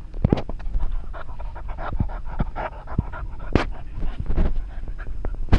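A cocker spaniel–pug cross (Cockermops) dog panting quickly, about four breaths a second, with a few sharp clicks mixed in.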